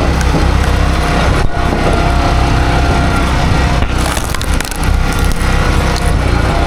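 Log splitter's engine running steadily while a wood round is forced apart, with cracking and splintering of the wood.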